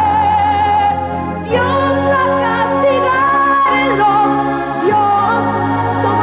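A man and a woman singing a stage-musical duet, long held notes with vibrato over band accompaniment with sustained bass notes.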